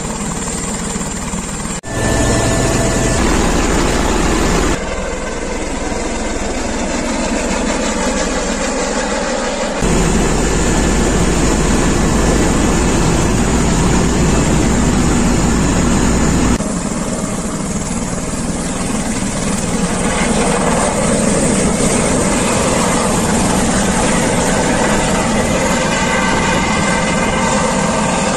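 Helicopter turbine and rotor running loudly. It is heard in several short clips cut together, close by on the helipad, inside the cabin in flight, and as the helicopter lifts off, so the sound changes abruptly a few times.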